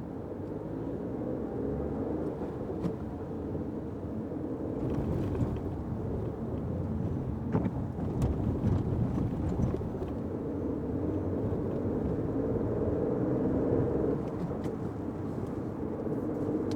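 Fiat 500X driving on wet roads: a steady low rumble of engine and tyres, with a few light ticks and a slightly louder stretch around the middle.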